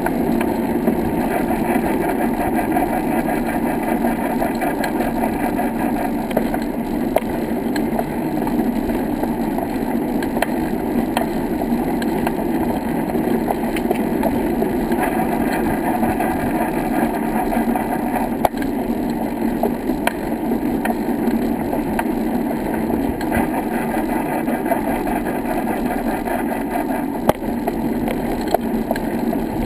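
Steady rumbling noise from a camera travelling along a brick-paved path: wind on the microphone and wheels rolling over the paving, with scattered small clicks.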